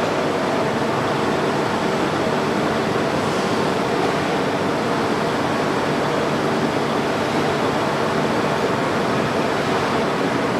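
WMW Niles DP1 facing lathe running, a steady mechanical hum and whir with no change in speed.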